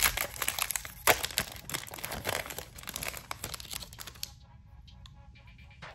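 Foil booster-pack wrapper being torn open and crinkled by hand, a dense run of sharp crackles that stops about four seconds in.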